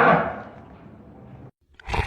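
The end of a dinosaur roar sound effect fading away during the first half second into a faint lingering tail, which cuts to silence about one and a half seconds in; the start of the next roar breaks in just before the end.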